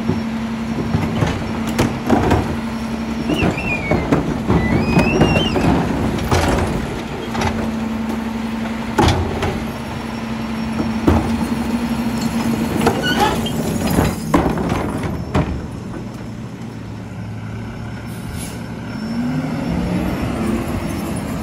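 McNeilus rear-loader garbage truck running with a steady hum while plastic recycling carts are tipped and banged against its hopper, with several knocks and a few high metallic squeals. Partway through the hum drops, there is a short hiss of air, and near the end the engine rises as the truck pulls away.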